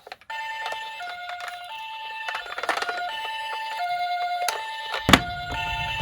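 Toy ambulance's electronic two-tone siren sounding the hi-lo "pee-poh" call, switching between a higher and a lower tone about every 0.7 s. There is a sharp click near the middle, and another near the end as a low rumble of the toy car rolling down the slope sets in.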